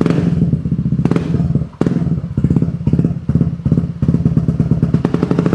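Yamaha NMAX Turbo scooter's single-cylinder engine running through an aftermarket Pro Speed slip-on exhaust with the dB killer fitted, its exhaust pulsing in a rapid, uneven beat that dips briefly about two seconds in.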